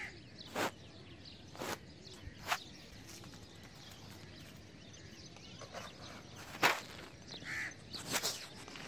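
Footsteps in sandals crunching on stony dirt ground: a handful of separate crunches and scuffs, the loudest about two-thirds of the way through, with a knock near the end as the small TV set is picked up.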